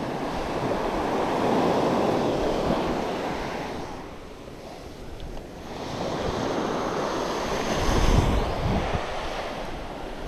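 Small shore-break waves washing up the sand in two slow swells, each building and fading over a few seconds. Wind rumbles on the microphone near the end.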